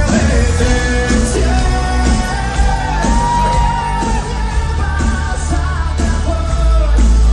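Live pop-rock band with heavy bass, and a male voice singing long held notes, with one long high note about halfway through.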